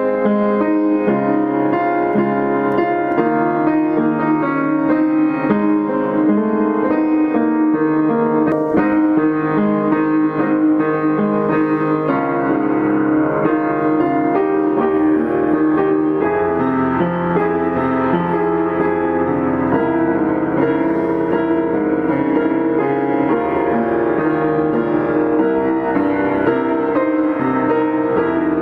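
Background piano music, a steady flowing melody over lower accompanying notes.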